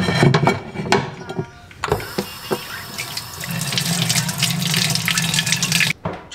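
A ceramic plate knocked and clinked against a stainless steel sink as it is set down, then the kitchen faucet runs steadily, water splashing onto the plate, stopping abruptly near the end.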